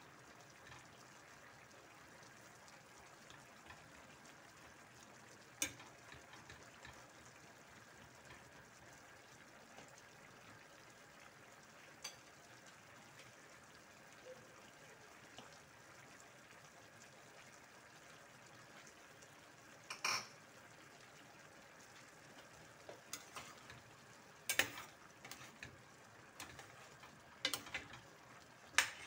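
Coconut-milk vegetable stew simmering in a stainless steel pan with a faint steady bubbling hiss, while a metal ladle clinks against the pan several times, mostly in the last ten seconds.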